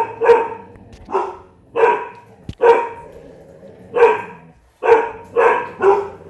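Dogs barking repeatedly: about nine short barks at irregular intervals, some in quick pairs, with a sharp click about two and a half seconds in.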